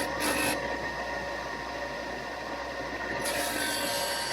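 Power sander running steadily, with a harsher hiss twice as the wooden lure body is pressed to the abrasive to open up its bevel: briefly at the start and again for a longer pass near the end.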